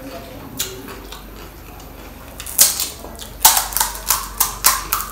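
Crisp fried panipuri (golgappa) shell cracking as fingers break a hole in its top. There is one crack about half a second in, then a quick run of sharp crackles through the second half.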